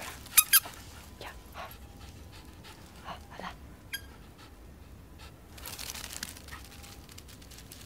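Japanese Spitz panting after play, with two short, sharp high-pitched sounds close together about half a second in.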